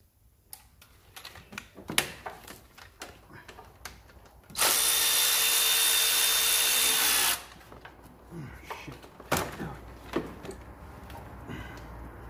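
Cordless ratchet running at a steady whine for a little under three seconds, starting about four and a half seconds in, as it spins out a bolt on the gearbox. Scattered clicks and knocks of the tool being handled come before and after.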